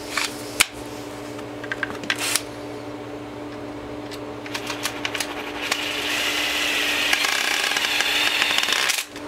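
Cordless driver running for about three seconds near the end, driving a screw into the landing gear's control box, then stopping sharply. Before it come a few light clicks and knocks of parts being handled.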